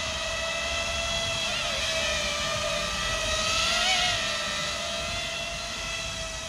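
FPV quadcopter's four MT2204 2300 kV brushless motors and propellers whining steadily as it hovers lifting a heavy cinema camera. The pitch wobbles briefly with small throttle corrections, about a second and a half in and again around four seconds.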